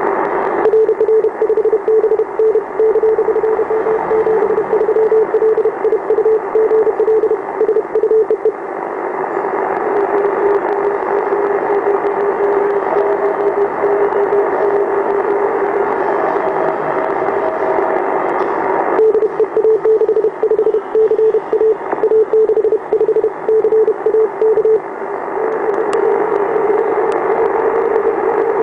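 Amateur radio receiver audio dominated by power-line interference: a loud, harsh hiss squeezed into the receiver's narrow audio band. A choppy, pulsing buzz rides on it, dropping away about 8 seconds in and coming back about 19 seconds in.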